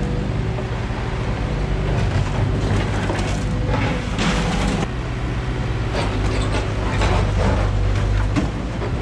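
Liebherr 924 material handler's diesel engine running steadily as it works its grapple, with scattered metal clanks and a longer rush of noise about four seconds in.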